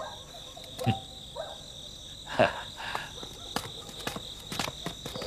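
Crickets chirping steadily as a night-time background, with a few short knocks and clicks over it.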